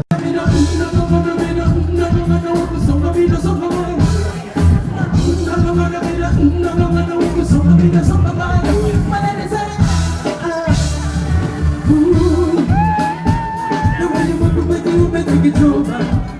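Concert music over a PA: a song with a steady heavy bass beat and a singing voice, with a long held sung note a little before the end.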